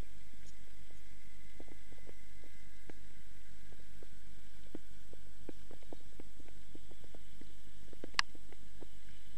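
A steady deep low hum with faint, scattered soft ticks and one sharp click near the end.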